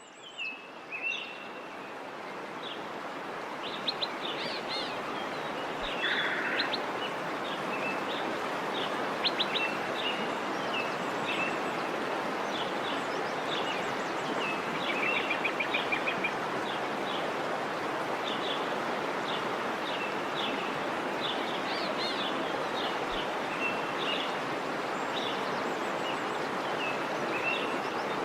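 Steady rush of a waterfall, fading up over the first few seconds, with small birds chirping and twittering over it throughout.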